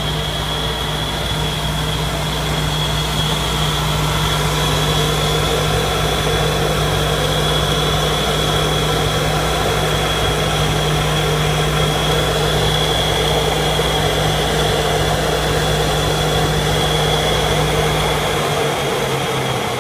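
Kinetic K5000 CNC plate drilling machine running with a steady hum and a steady high whine. A low hum cuts out near the end.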